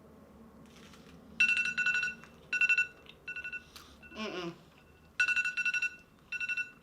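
Timer alarm ringtone going off as a ten-minute countdown runs out: short electronic two-tone bursts in a repeating pattern, about every four seconds. A brief falling voice sound comes between the first two rounds of ringing.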